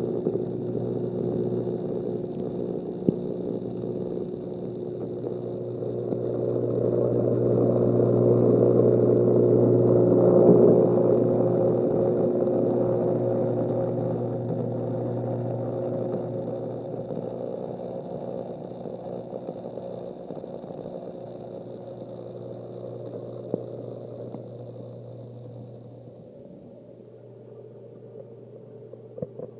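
Reef aquarium sump equipment running: a steady electrical pump hum with water rushing and splashing through the sump and refugium. The water noise swells about ten seconds in and then fades, and a high hiss cuts out near the end.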